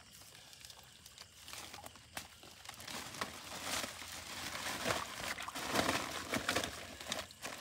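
Irregular splashing in shallow water and the crinkle of a plastic sack as a caught fish is worked out of a gill net and into the sack, building up after the first second or so.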